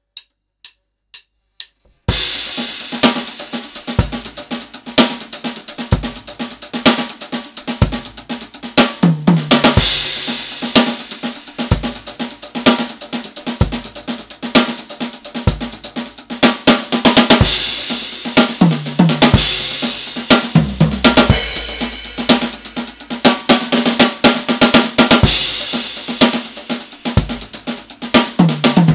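Four quick clicks, then an acoustic drum kit plays a busy groove: bass drum, snare with rimshots, hi-hat and cymbals, with strong accented hits every couple of seconds.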